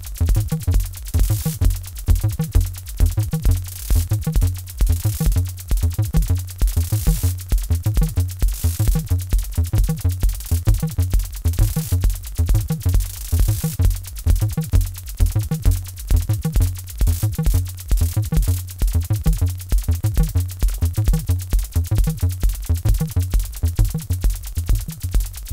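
Electronic acid music from an Acidlab Bassline 1, a TB-303-style bass synthesizer, playing a sequenced bass line over a Korg Monotribe's analog drum pattern at a fast, steady beat. High hiss swells in and out during the first half.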